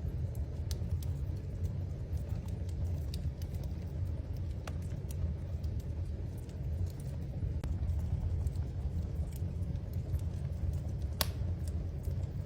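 Wood fire crackling in a fireplace: a steady low rumble of the flames under scattered sharp pops and snaps, the loudest about eleven seconds in.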